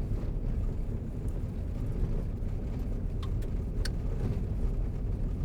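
Car driving on a dirt road: a steady low rumble of tyres and engine, with a few faint clicks.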